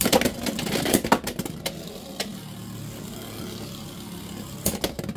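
Two Beyblade X tops, Driger Slash and Viper Tail, spinning in a clear plastic stadium with a steady whirring. Sharp clicks sound as they clash and scrape against each other and the stadium wall, several in the first two seconds and two more near the end.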